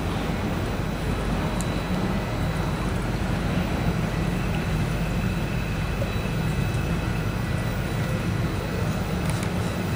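A steady low engine rumble that holds an even level throughout, with a faint hiss above it.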